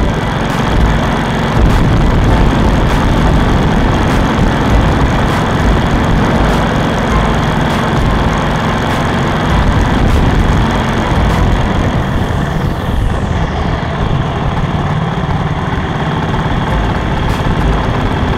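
Motorcycle running at road speed, engine and wind noise heard from on the bike, steady throughout, while riding through a road tunnel.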